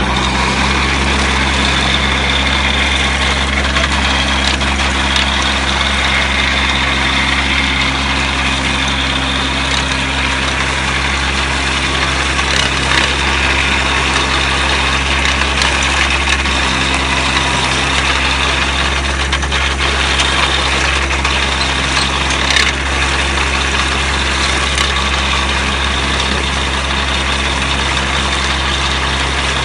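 Compact 4WD tractor's engine running steadily under load, with the rotating blades of a tractor-drawn stubble chopper churning through crop stubble and soil, and a few sharp knocks in the middle stretch.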